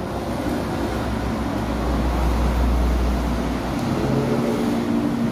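Road traffic: a motor vehicle passing close by, a low rumble that swells about one and a half seconds in and fades by about four seconds.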